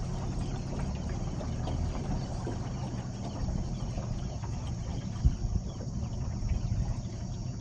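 Small boat's motor running steadily under a low rumble of wind on the microphone, with a brief bump about five seconds in.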